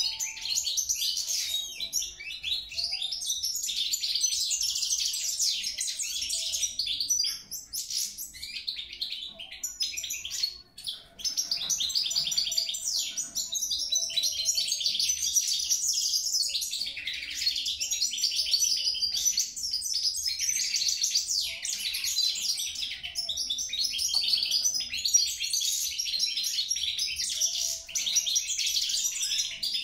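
European goldfinch singing a long, rapid run of high notes almost without a break, pausing briefly about 7 and 11 seconds in.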